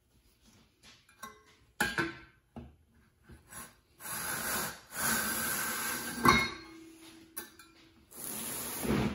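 Red Amcraft V-groove tool pushed along a layout square through fiberglass duct board, its blades cutting the groove with a rough, hissing scrape for several seconds. A few knocks about two seconds in as the square and tool are set in place, and one sharp knock about six seconds in.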